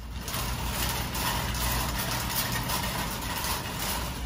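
Steady low hum under an even background hiss: the ambience of a big-box store.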